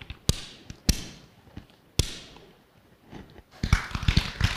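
Wooden pucks knocking sharply against a wooden tabletop board game as they are flicked, single knocks about half a second to a second apart, then a faster patter of clicks near the end.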